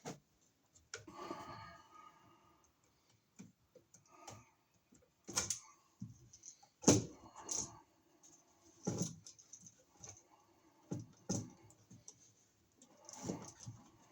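Irregular small clicks, taps and short scrapes of a screwdriver working on a wall receptacle as its terminal screws are tightened down on the wires, with the sharpest knock about seven seconds in.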